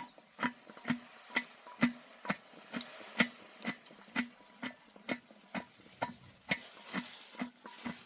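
Steady, regular knocking, about two sharp strokes a second, each with a short hollow ring, over a faint hiss.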